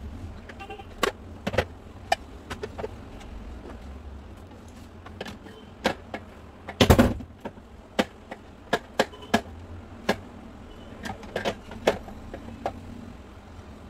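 Plastic parts of a vertical slow juicer knocking and clicking as they are fitted together by hand, with the juicing bowl and hopper lid set onto the motor base. The taps come at irregular intervals, with the loudest knock about seven seconds in.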